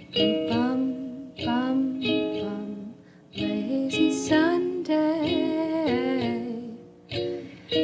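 3D-printed Nuke ukulele played in short phrases of plucked, ringing chords, with brief pauses between phrases.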